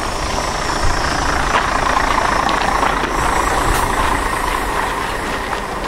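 City bus engine running steadily, heard from on board the bus.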